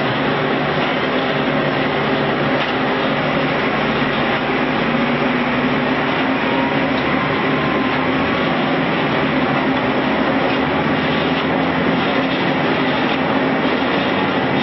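Concrete block production line machinery running: a loud, steady mechanical rumble with a low hum from the feeding and mixing equipment's electric motors.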